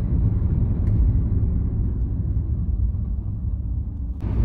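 Steady low road and engine rumble heard inside a moving car's cabin. Near the end it changes abruptly to a brighter, slightly louder rumble.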